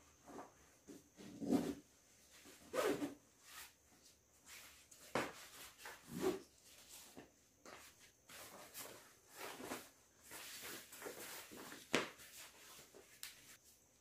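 Nylon seat fabric rustling and the aluminium frame poles knocking as the seat of a folding camping chair is pulled onto its frame, in irregular bursts with one sharp click near the end.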